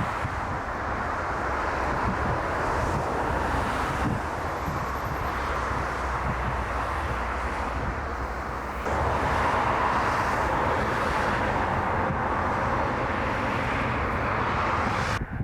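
Jet airliner engines running, with wind rumbling on the microphone; the sound steps up abruptly about nine seconds in.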